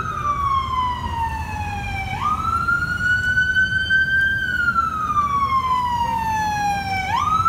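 An ambulance's electronic siren wailing: a slow cycle of about five seconds in which the tone falls gradually, jumps back up quickly, climbs a little and falls again. It jumps up twice, about two seconds in and near the end, over a low rumble of traffic.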